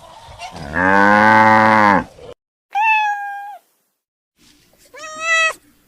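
A cow moos once, a long low call. After a short silence a cat meows twice.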